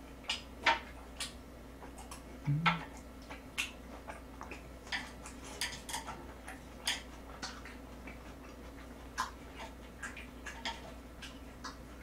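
Close-miked eating of grilled pork belly: irregular sharp clicks and wet smacks of chewing, mixed with chopsticks tapping on the griddle, and a short hum from the eater about two and a half seconds in.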